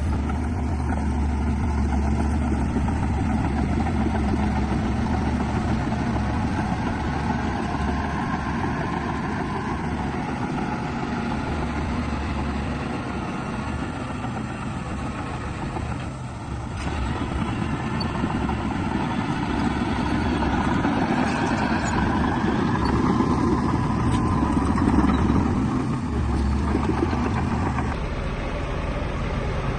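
Heavy diesel earthmoving machinery working, a Shantui bulldozer's engine among it, running steadily and swelling and easing in level. It is briefly softer about sixteen seconds in and loudest about twenty-five seconds in.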